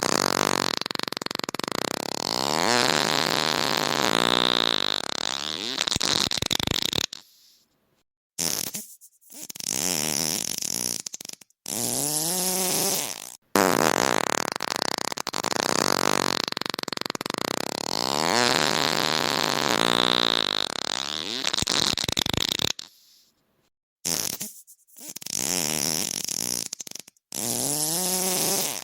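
A run of long, drawn-out farts, each a wavering buzz with a rasp, with short silent gaps between them. The same sequence seems to play again about halfway through.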